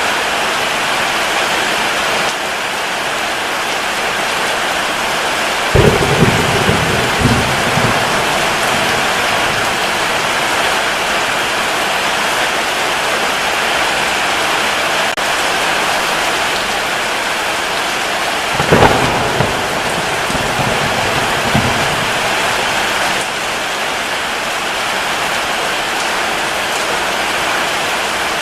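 Steady heavy rain with two low rolls of thunder, one about six seconds in and another about thirteen seconds later.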